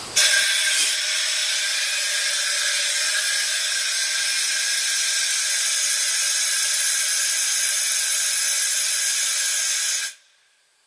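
Compressed air hissing out of a locomotive's 6BL automatic brake valve exhaust during a service brake application: a loud, steady hiss that starts abruptly and stops sharply about a second before the end. It is the brake pipe venting down together with the equalizing reservoir, the sign that the brake valve is working as it should.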